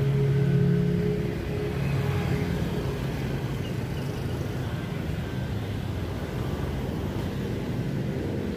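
Steady road traffic noise from cars and motorbikes passing on a busy city street, with the tail of background music fading out in the first second or so.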